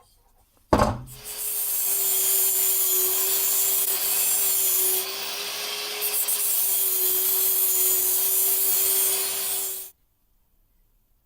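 A small power tool switched on with a click, running steadily for about nine seconds with a steady hum under a loud hiss of cutting or abrading, then cut off abruptly.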